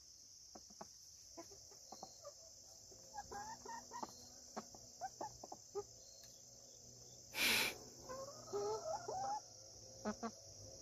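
Hens clucking softly in short murmured calls among quick light taps, with a brief loud rustle about seven and a half seconds in. A steady high chirring of insects runs underneath.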